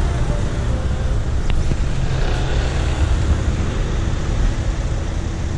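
Road traffic: the engines of cars and vans in a slow-moving queue, a steady low rumble.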